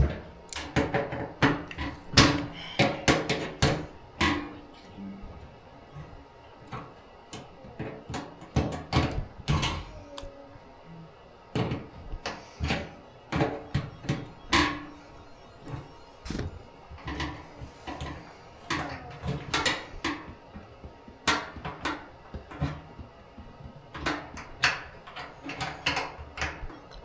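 Irregular knocks and clunks of hands and tools working on the car while its fuel tank is fitted, coming in quick clusters with short pauses between.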